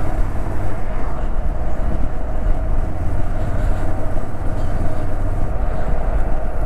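Steady rush of wind and low engine-and-road rumble from a motorcycle under way, picked up by a lavalier mic on the rider's camera.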